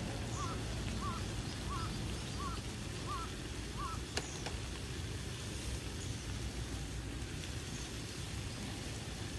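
Gas canister camp stove burning under a steaming frying pan, a steady low rumble. Over it, a bird gives a short rising-and-falling call six times at an even pace, about every two-thirds of a second, stopping about four seconds in. A single sharp click comes just after.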